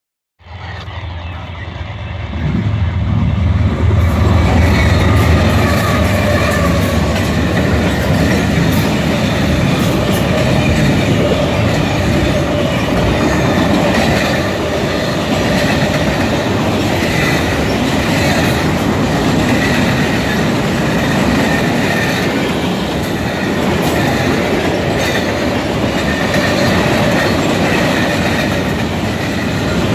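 Freight train passing close by. The lead GE diesel locomotives go by with a heavy low rumble in the first few seconds, then a long string of tank cars and covered hoppers rolls past, steel wheels clacking over rail joints and squealing faintly.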